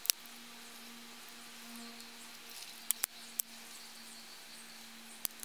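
Dry twigs snapping and clicking as they are broken and laid onto a small fire, about five sharp snaps: one at the start, three in quick succession about three seconds in, and one near the end.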